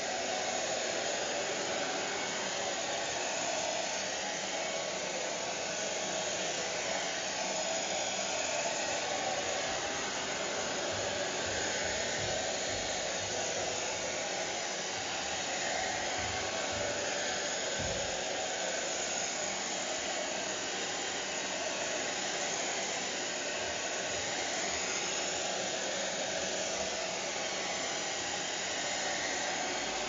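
Hair dryer running steadily: an even, unbroken whoosh of the fan and blown air.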